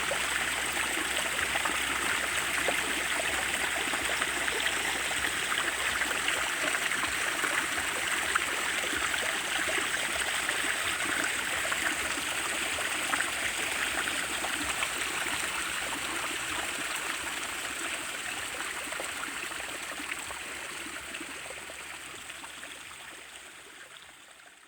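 Running water, a steady stream-like rush with no breaks, fading out gradually over the last several seconds.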